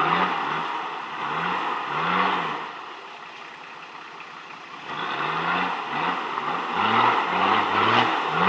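Nissan Patrol 2.8 turbodiesel engine revved in repeated short bursts, each rising and falling in pitch, over a steady rushing noise. It eases off for a couple of seconds midway, then revs again more quickly and more loudly near the end.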